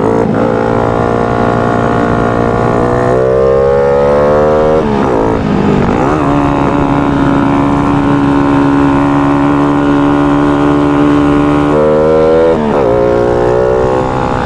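Yamaha Sirius FI underbone motorcycle's single-cylinder four-stroke engine running under load on a climb, heard from the rider's seat. Its note rises and drops back about five seconds in, and again near the end.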